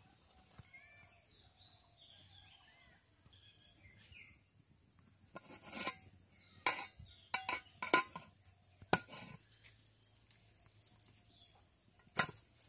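Metal cookware clanking: a metal plate used as a lid knocks against a metal pot several times from about five to nine seconds in, then a black wok is set onto the stove with one clank near the end. Birds chirp in the background during the first few seconds.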